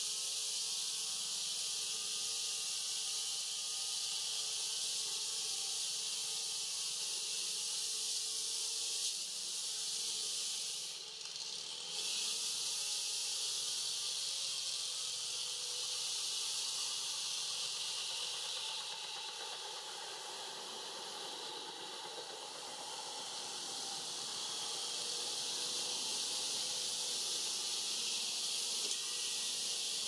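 A steady high-pitched hiss with no clear calls in it. Its very top briefly thins out about eleven seconds in.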